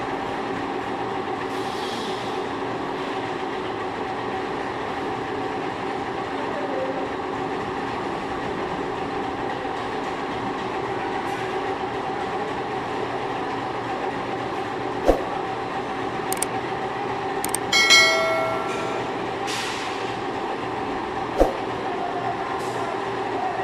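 Machine tool running steadily while machining a screw conveyor, a constant drone with a held hum. A couple of sharp metallic clicks, and about 18 s in a single ringing metal clang that is the loudest sound.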